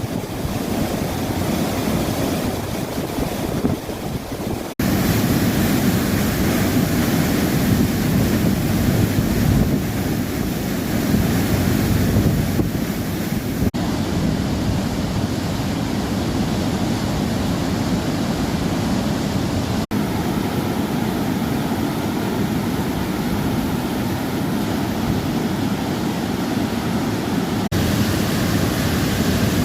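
Waterfall and rushing water: a loud, steady rushing noise, deepest in the low end. It changes abruptly at hard cuts about 5, 14, 20 and 28 seconds in.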